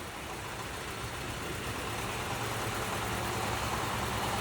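Engine of a tracked mini tractor (crawler micro cultivator) running steadily as it is driven, gradually getting louder.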